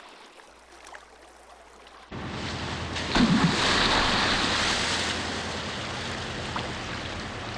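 Quiet at first, then about two seconds in a sudden loud rush of churning, splashing seawater beside a boat, with a heavy splash a second later, settling into a steady wash of choppy water.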